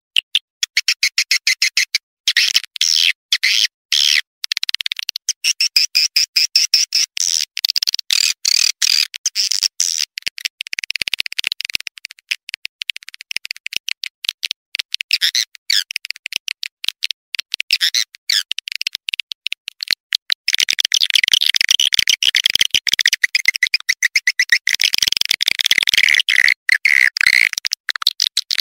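Swiftlet lure call: a blended recording of swiftlet chirps and rapid clicking twitters, made to draw swiftlets to a nesting house. It is all high-pitched, with nothing low, and grows denser and louder about two-thirds of the way through.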